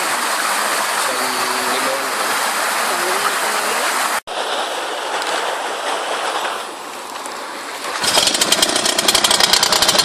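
A steady rushing noise, then about eight seconds in the single-cylinder four-stroke engine of a Honda Legenda motorcycle starts and runs at idle with fast, even pulses.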